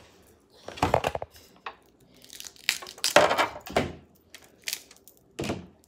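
Crab cluster shells being cracked and torn apart by hand, in several crackling, crunching bursts, the loudest about three seconds in.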